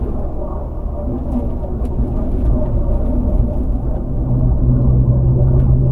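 Land Rover Freelander driving: steady engine and road rumble, with a low hum growing louder about four seconds in.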